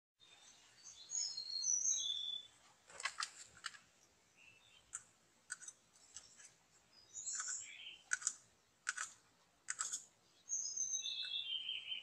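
White-rumped shama (murai batu) singing: clear whistled phrases at the start and again near the end, some gliding down in pitch, with about a dozen sharp clicking notes in between.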